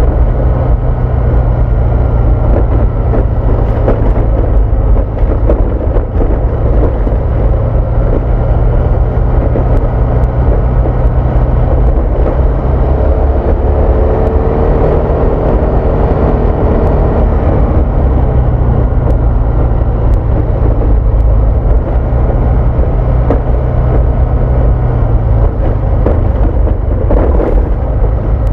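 Honda Vario 160 scooter's single-cylinder engine running at cruising speed, under a steady rumble of wind and road noise. The engine note rises about halfway through and drops back a few seconds later.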